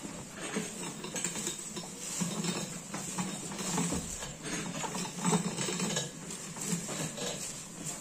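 A cow eating dry hay from a wooden trough: irregular rustling of straw and crunching as it pulls up mouthfuls and chews.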